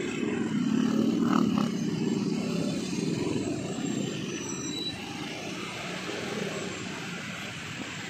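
Road traffic heard from a slow-moving motorcycle: a steady low rumble of motorcycle and car engines, easing a little after about five seconds.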